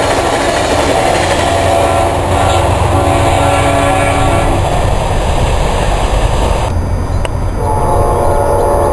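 An Amtrak passenger train's Amfleet cars rumble past while the locomotive horn sounds long, long, short, long, the standard grade-crossing signal. After a break, another locomotive's horn, from a P42DC, starts a long blast a little before the end.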